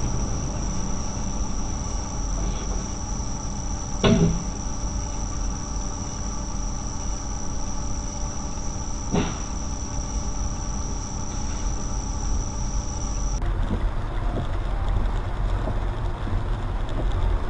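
Dashcam audio from a car stopped on a snowy street: a low rumble with a steady high-pitched whine, broken by two sharp knocks about five seconds apart. Near the end it switches to a steady wash of noise from a rainy street.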